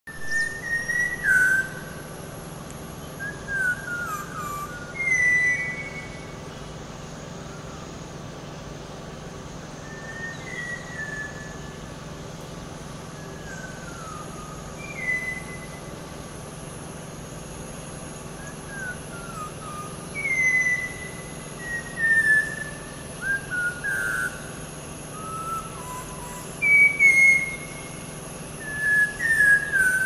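Malabar whistling thrush singing: short, human-like whistled phrases of gliding, mostly falling notes, each about a second long, coming every few seconds with pauses between.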